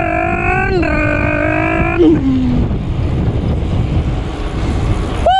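A man's long held shout of about two seconds that drops in pitch and trails off, over the rumble of wind buffeting the microphone on a bicycle ridden at speed. Wind noise alone fills the rest.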